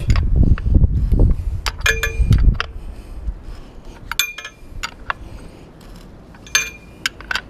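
A metal 17 mm spanner clinking three times, each with a short ring, as an oil filter is nipped up by hand, after a couple of seconds of low rumbling handling noise.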